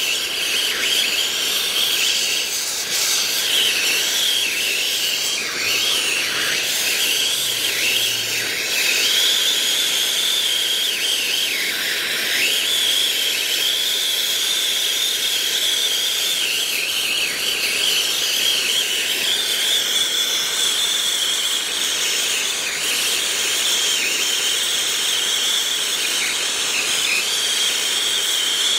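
Brazing torch flame hissing steadily on a copper refrigerant line, heating a brazed joint to free the old heat pump reversing valve. A high, wavering whistle rides over the hiss, dipping in pitch now and then.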